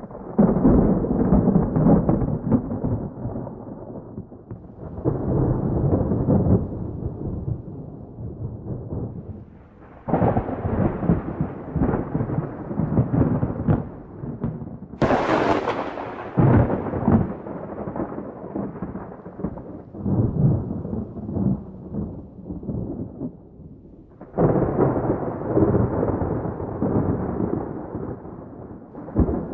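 Thunderstorm: rolling thunder comes in a series of long rumbles about every five seconds. About halfway through there is one sharp, close crack of thunder.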